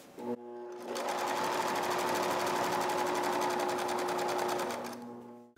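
Electric sewing machine stitching fringe onto bias tape on heavy awning fabric: the motor speeds up about a second in, runs a rapid, even stitch with a steady hum, then slows and stops near the end.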